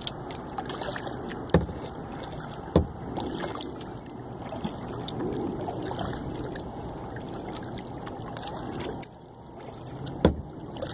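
Kayak paddling: water swishing and dripping around the paddle and hull, with three sharp knocks, two in the first few seconds and one near the end.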